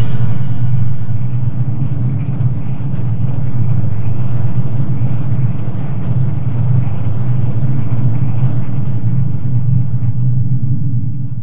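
A steady low rumble with a hiss above it, starting to fade out near the end.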